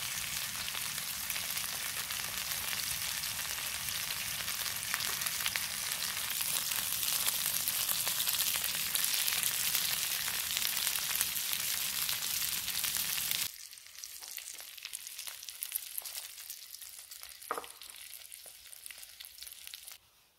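Beef short-rib steaks searing in a frying pan with tomato halves and garlic: a loud, dense sizzle that drops suddenly about two-thirds of the way in to a quieter sizzle with scattered crackles and spits.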